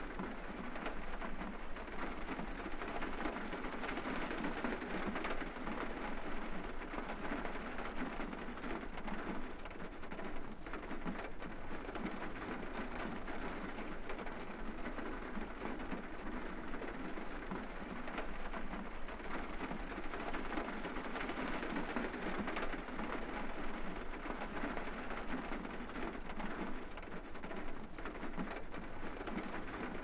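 Rain hitting the roof of a car, heard from inside the car: a steady, dense patter of drops that neither builds nor eases.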